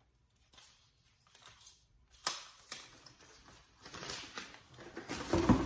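Light clicks and rattles of a small aluminium tripod being handled, its legs worked and folded, with a louder stretch of handling noise near the end.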